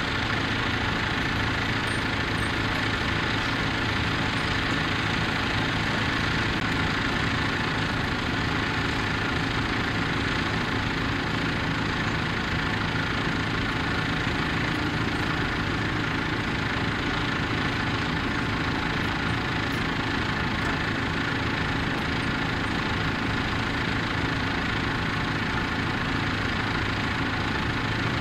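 Diesel farm tractor engines running steadily.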